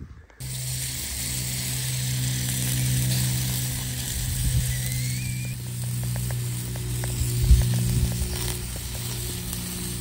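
Background music with held chords, over the sizzle and light crackle of bratwurst on a charcoal grill.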